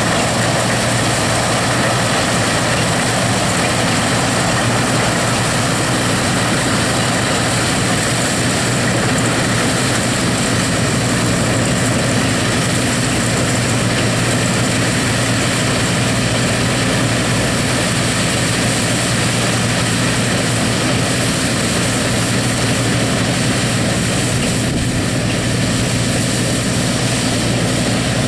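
Massey-Harris Clipper combine running steadily while harvesting wheat: its engine and threshing machinery make a constant mechanical din with a steady low hum underneath.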